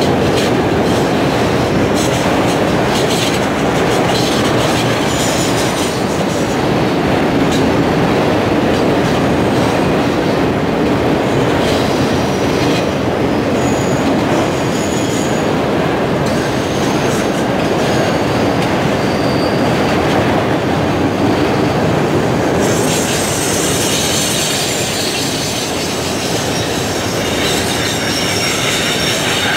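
Freight train of autorack cars rolling past: a steady rumble of steel wheels on rail, with thin high wheel squeals coming and going. A louder, hissing wheel squeal sets in about three-quarters of the way through.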